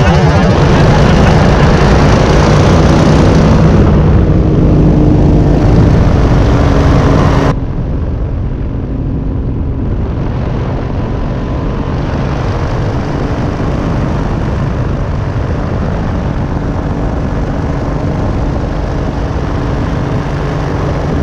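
Powered parachute's engine and propeller running steadily in flight, heard from the seat with wind noise. About seven seconds in, the sound drops suddenly to a quieter, steady drone.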